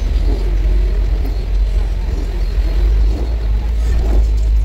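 Car on the move, heard from inside the cabin: a steady low rumble of engine and road noise.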